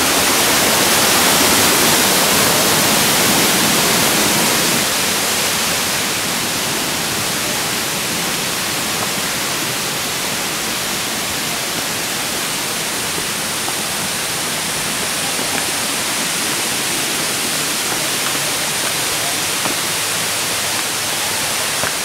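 Steady rushing of a waterfall, a continuous even hiss of falling water, a little louder for the first few seconds.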